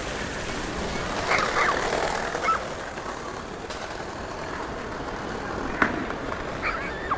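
City street ambience: a steady hum of traffic, with a few brief, sharp sounds standing out about a second in, again at two and a half seconds, and near the end.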